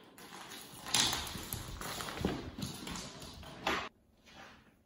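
A small plastic bottle being batted and skidded across a laminate floor by playing Persian cats: quick clattering taps and scrabbling for nearly four seconds, ending suddenly.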